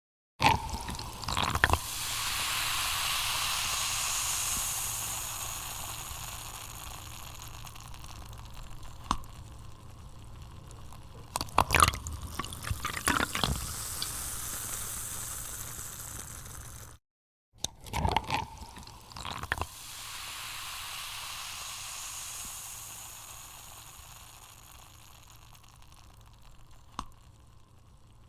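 Coca-Cola fizzing as it is poured, a fine crackling carbonation hiss that slowly dies away, with a few small clicks along the way. After a brief dead gap partway through, a second pour starts suddenly and fizzes and fades the same way.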